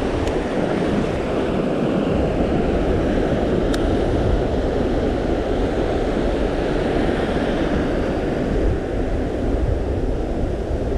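Steady wind buffeting the microphone in a headwind, mixed with surf washing on the reef.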